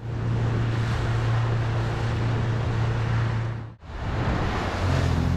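Small boat's outboard motor running steadily under way, mixed with wind and rushing water. The sound drops out abruptly just under four seconds in and comes back with a different engine note.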